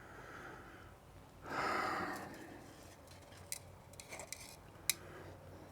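A short breathy rush of noise about a second and a half in, then a few light, sharp clicks of small carburetor parts being handled.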